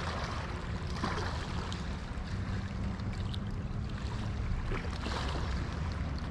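Steady riverbank ambience: a low, fluttering rumble under an even hiss, with no distinct event standing out.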